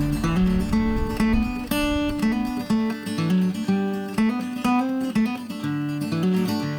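Background music: acoustic guitar playing a picked, strummed instrumental passage.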